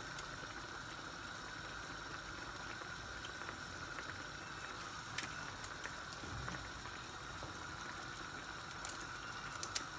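Chicken pepper sauce frying uncovered in a pot, bubbling and sizzling steadily, with a few faint spits.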